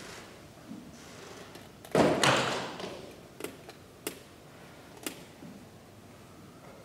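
A sudden thud with a short rushing tail about two seconds in, followed by three sharp taps.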